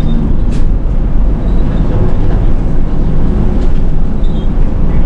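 Nishitetsu city bus running, heard from inside the cabin: a loud, steady low rumble of engine and road noise, with a sharp click about half a second in.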